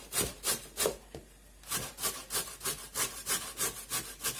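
A carrot being grated on a metal box grater, in quick, even rasping strokes, several a second, with a brief pause about a second in.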